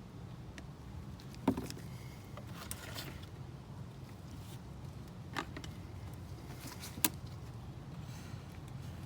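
A few sharp knocks and brief rustling handling noises over a steady low hum, as the new oil filter is handled and primed with oil.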